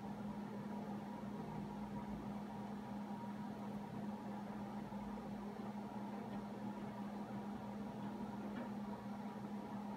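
A steady low machine hum with an even, constant tone and a light hiss.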